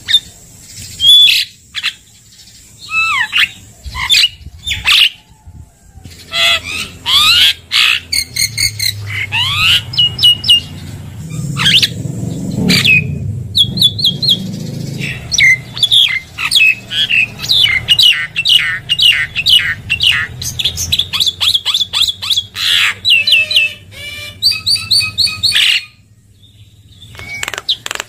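Javan myna (jalak kebo) calling: a varied run of sharp whistles, squawks and fast chattering notes. The notes come most densely in the second half and break off shortly before the end.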